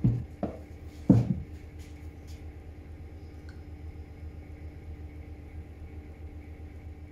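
Three dull knocks in the first second or so, the last the loudest, as the plastic backpack sprayer and its pump parts are knocked about on a wooden workbench. After them a steady low hum.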